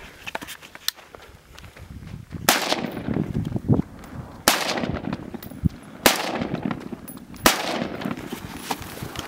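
Four single gunshots about one and a half to two seconds apart, each trailing off in an echo.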